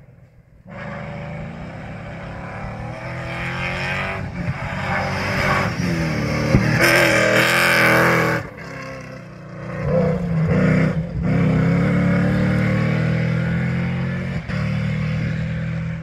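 Rally-raid pickup truck's engine revving hard as it drives past on a dirt track, the pitch rising and dropping back through several gear changes. It is loudest around the middle, where dirt and gravel thrown from the tyres add a hiss.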